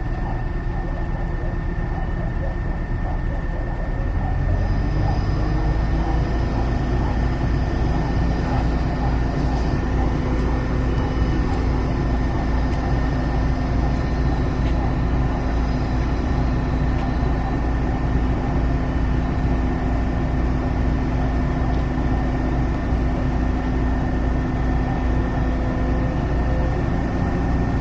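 Diesel engine of a Komatsu PC200 excavator running under load. It picks up about four seconds in and holds a steady, higher pitch, with a steady high whine alongside.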